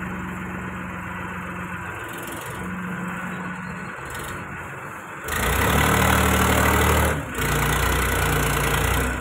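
Powertrac tractor's diesel engine running steadily. It gets much louder about five seconds in, dips briefly near seven seconds, then runs on loud.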